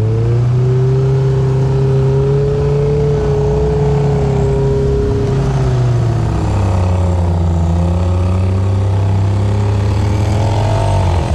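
Engine of a Polaris RZR Pro R side-by-side, a 2.0-litre four-cylinder, running as it is driven along the trail. The revs rise at the start, hold steady, drop about six seconds in, then hold again with some wavering near the end.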